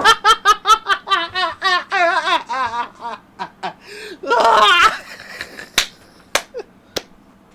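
A man laughing hard in a rapid run of short, high ha's for about three seconds, then a louder burst of laughter, followed by three sharp smacks near the end.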